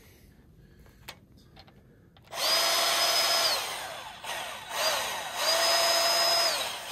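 Makita cordless grease gun pumping grease into a grease fitting on a Kubota BX23s loader. After a few faint clicks, its motor whines in two runs of about a second each, starting a little over two seconds in, with a brief blip between them. The pitch spins up at each squeeze of the trigger and winds down at each release.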